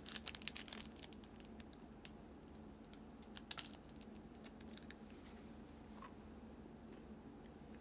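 Faint clicks and light taps, clustered in the first second and again about three and a half seconds in, over a low steady hum.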